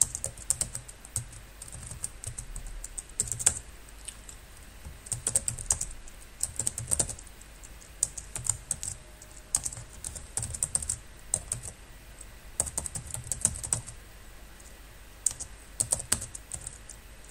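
Computer keyboard typing in short bursts of keystrokes with brief pauses between them.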